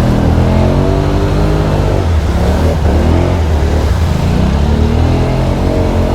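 Can-Am Outlander ATV's V-twin engine revving in deep mud, its pitch climbing and dropping several times as the throttle is worked.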